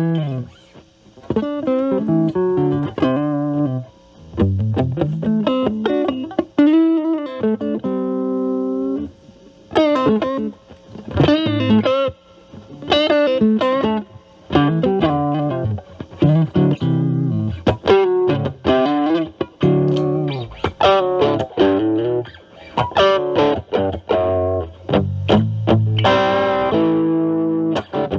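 Electric guitar, a Stratocaster with single-coil pickups, played through an Ibanez Super Metal mini distortion pedal with the drive set high (around 11 to 12) into a Marshall Valvestate amp's clean channel. It plays short improvised phrases of single notes and chords with brief pauses, with one chord held for about a second around eight seconds in.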